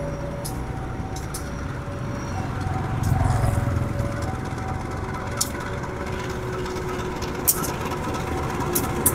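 Railway level-crossing warning alarm sounding two tones, a higher and a lower one, that take turns roughly every second, over a steady rumble of road traffic that swells about three seconds in.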